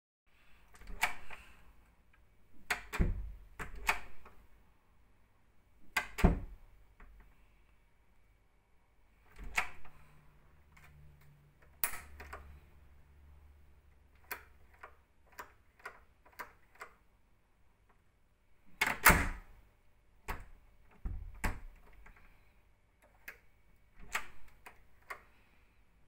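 Night latch (rim lock) clicking and clacking as its knob is turned and let go and the latch mechanism works. It makes a run of irregular sharp clicks, some in quick clusters, the loudest about six and nineteen seconds in.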